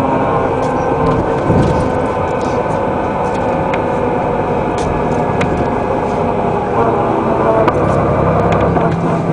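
The 1997 Den Oudsten Alliance B96 city bus under way, heard from inside the cabin. Its diesel engine and drivetrain run steadily, the pitch shifting a couple of times as speed changes, with light rattles and clicks from the body.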